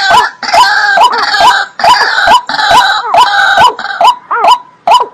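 Recorded waterbird calls: a fast run of short knocking call notes, about three a second. Through the middle, longer harsh croaking calls overlap them.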